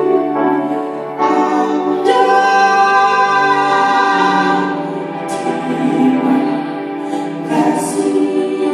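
Music with several voices singing long, held notes, like a choir. A few short, bright struck hits sound about halfway through and again near the end.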